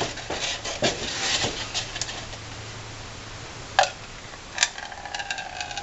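Styrofoam cups handled with scattered clicks and rustles, and two sharp clicks near the middle. Then oil drained from a PCV catch can trickles from one foam cup into another.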